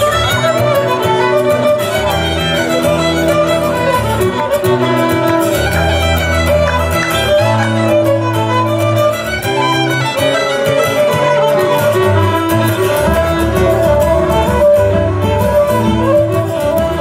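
Live band playing a lively instrumental tune led by two fiddles, with a wind instrument and acoustic guitar, and low notes moving underneath.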